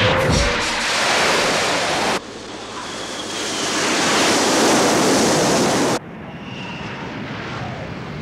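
Rushing jet and air noise as a sound effect: a loud rush that cuts off about two seconds in, a jet rush that swells and cuts off about six seconds in, then a quieter steady jet drone.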